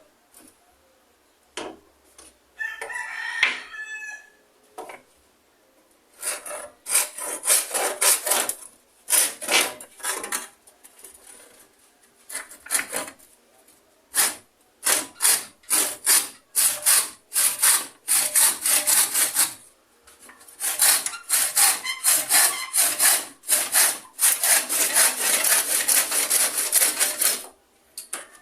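Handsaw cutting through a wooden board in quick back-and-forth strokes, about three a second, in several runs with short pauses between. A rooster crows about three seconds in.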